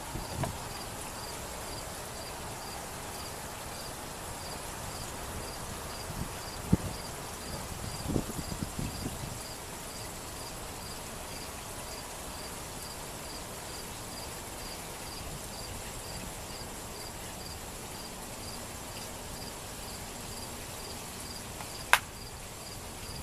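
Backyard waterfall gurgling steadily under a distant drone of highway traffic, with a cricket chirping about twice a second. A few low knocks come about a third of the way in, and one sharp click near the end.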